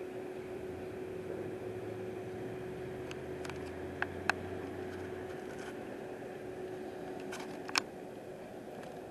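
Steady mechanical hum with one fixed tone, and a low engine-like drone under it for about the first five seconds. A handful of sharp clicks come about three to four and a half seconds in and again near eight seconds, the last one the loudest.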